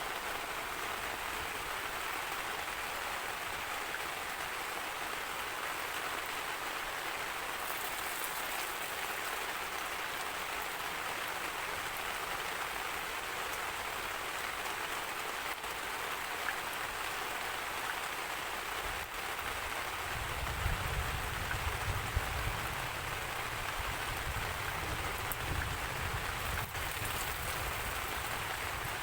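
Steady heavy rain hissing, with a low rumble of thunder rolling in about two-thirds of the way through and fading a few seconds later.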